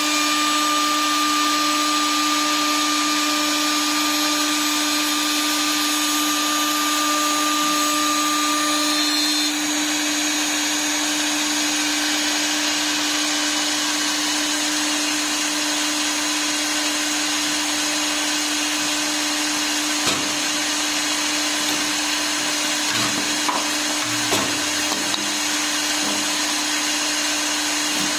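A CNC wood lathe's electric spindle running steadily, a constant whine over a rushing hiss. A higher overtone drops out about a third of the way in, and a few light knocks come near the end.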